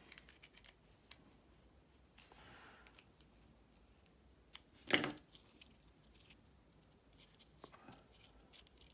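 Faint clicks and scrapes of a small screwdriver backing off the screws on a model locomotive's motor housing, loosened because over-tightening had seized the gears. One louder brief knock about five seconds in.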